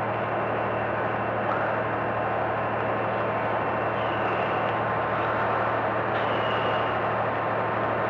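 Steady construction-site machinery drone with a constant low engine hum. Faint brief high whines come in about four and six seconds in.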